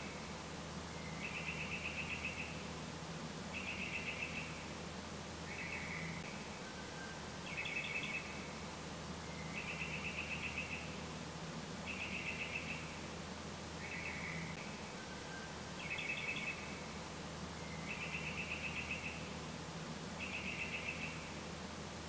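Short trilled chirps, about one every two seconds, over a low steady hum.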